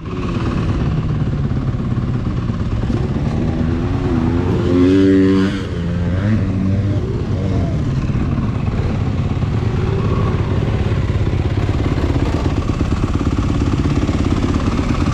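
Dirt bike engine running, revving up and down about three to six seconds in, loudest around five seconds, then running steadily.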